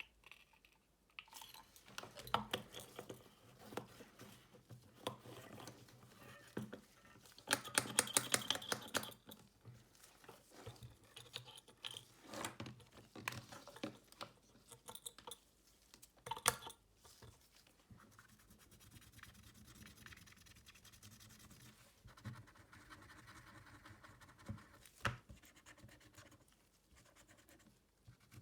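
Small repair tools and fingers scratching, scraping and clicking on a smartphone during a back-cover replacement, with a quick run of rapid clicks about eight seconds in and a single sharp tap near the end.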